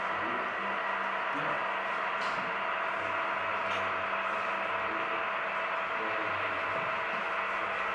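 Steady hum and hiss of room noise with a few steady tones, faint distant murmuring voices and a couple of soft ticks.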